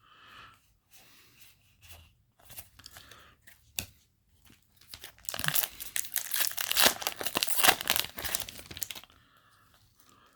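Yu-Gi-Oh! booster pack's foil wrapper being torn open and crinkled. Faint handling rustles come first, then a loud stretch of tearing and crinkling from about five seconds in that stops about a second before the end.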